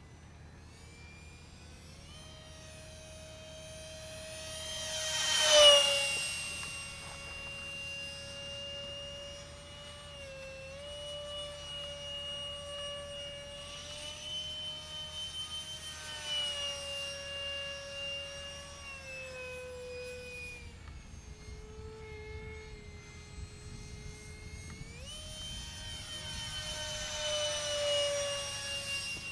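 Electric ducted fan of a small Depron foam RC jet whining in flight, its pitch stepping up and down with the throttle. About five to six seconds in it gets much louder on a close pass, the whine sweeping down in pitch as the jet goes by, and it swells again on another pass near the end.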